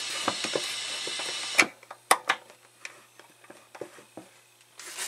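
Loud steady hissing noise through the Behringer Xenyx QX1202USB mixer's output, caused by its power jack not being fully inserted. About a second and a half in, a sharp click as the jack is pushed fully in, and the hiss stops at once. A few faint handling clicks follow.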